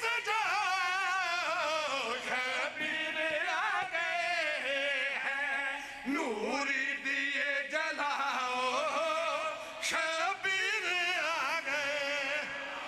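Men chanting a devotional qasida in praise of Imam Hussain: a lead male voice with others joining in, sung loudly with a heavily wavering, ornamented pitch and brief breaths between phrases.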